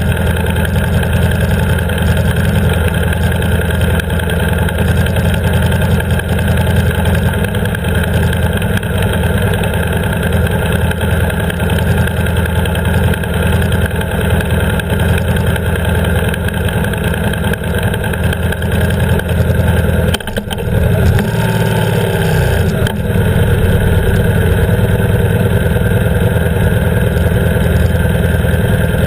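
BMW R 1150 GS boxer-twin engine idling steadily, with a brief dip and change in engine note about twenty seconds in.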